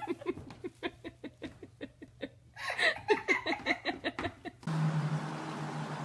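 A person laughing in rapid pulses, in two bursts. About three-quarters of the way in it cuts off sharply to steady background hiss with a low hum.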